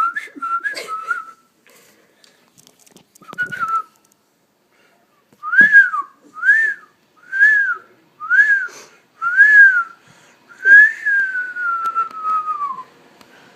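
Whistling: a few short notes, then five short rise-and-fall whistles in a row, ending with one long whistle that slowly slides down in pitch.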